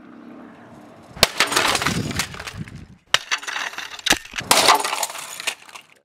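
A scanner dropped from a height smashing on hard ground and breaking apart: four sharp crashes, each followed by fragments clattering and skittering.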